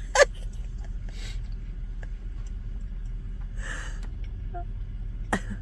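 A person taking several sharp, breathy gasps and sniffs after very spicy food, the first one loudest, over a low steady hum.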